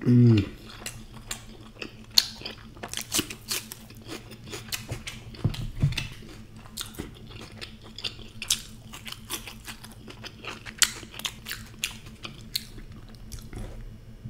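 Close-miked mouth sounds of chewing deep-fried puri with spiced potato curry: wet crackling and many small crisp clicks. It opens with a short, loud hum from the eater that falls in pitch.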